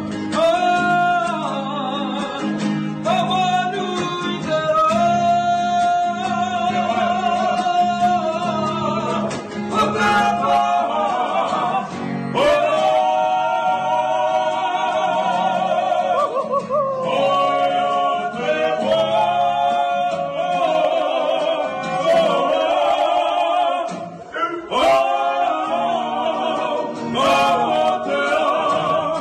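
Solo singers, one after another, singing slow songs with long held notes and vibrato over a soft musical accompaniment.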